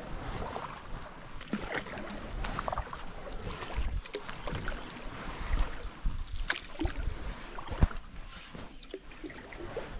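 Canoe on choppy water: small scattered knocks and clatter against the hull, with water lapping and wind rumbling on the microphone.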